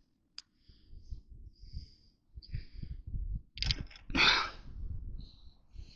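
A person wading through deep snow: irregular soft steps and rustling as the legs push through it, with a louder rush of noise about four seconds in.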